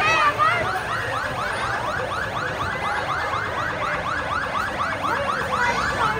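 Electronic vehicle siren in a fast yelp, a short rising sweep repeated about four times a second.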